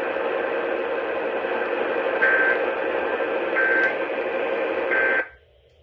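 Emergency Alert System end-of-message signal: three short digital data bursts about 1.3 seconds apart, over hissy radio reception with a steady hum. It marks the end of the alert. The radio audio cuts off abruptly just after the third burst, near the end.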